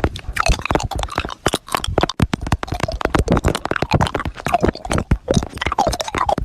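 Round hard candy being rolled around in a mouth: a dense run of wet clicks and smacks, many to the second.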